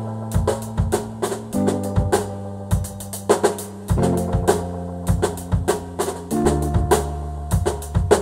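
Dub music: a drum kit beat with kick drum, snare and rimshots over a deep, held bass line that moves to a new note every couple of seconds.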